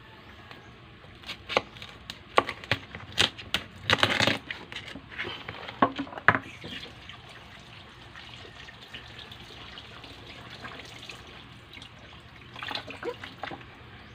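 A knife cutting through a spiny lobster's tail shell on a cutting board, a series of sharp cracks and knocks, mixed with water splashing in a sink.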